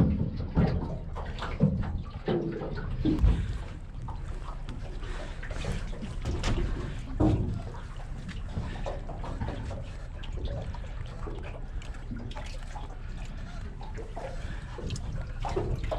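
Water sloshing and trickling around a small aluminum boat hull sitting in the lake on its trailer, with a few knocks in the first few seconds and a low steady rumble underneath.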